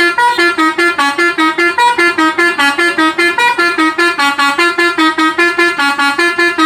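Alzifa Airhorn V2.0 telolet bus air horn playing a tune: a loud, rapid run of short honked notes, several tones sounding together.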